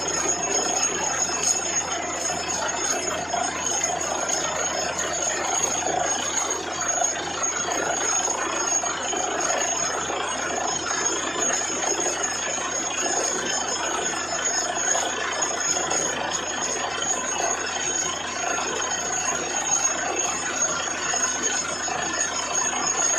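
Truck-mounted borewell drilling rig running steadily while drilling, its air compressor and drill making a dense, even din with a thin steady high whine.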